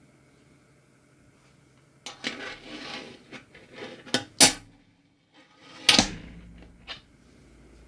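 Fingerboard parts being handled: a rustle, then several sharp clacks and rattles, the loudest about four and a half seconds in, and a hard knock about six seconds in followed by a few lighter ticks.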